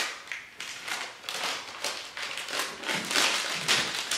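Tissue paper crinkling and rustling as it is pulled off small nail polish bottles, in a quick string of short crackles that grows louder near the end.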